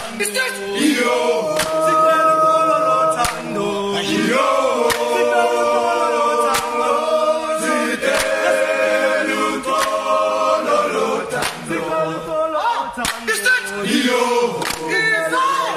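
A group of men singing a cappella in harmony, with sharp hand claps here and there.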